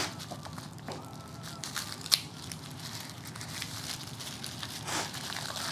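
Paper wrapping crinkling and rustling as gloved hands unwrap a small item, with a few sharp clicks, the sharpest about two seconds in.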